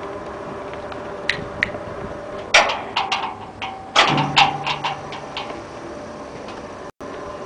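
Steady machine hum with a string of sharp metallic clicks and knocks, busiest in the middle.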